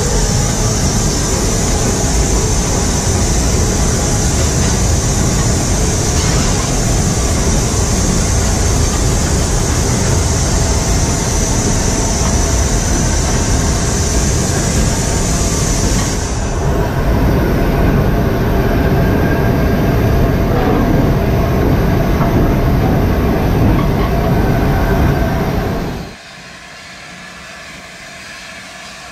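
Steady running noise of LNER Class A4 steam locomotive 60009 on the move, heard from the footplate: wheels on rails and rushing air, with a high hiss that stops about two-thirds of the way through. Near the end the noise cuts off suddenly to a much quieter background.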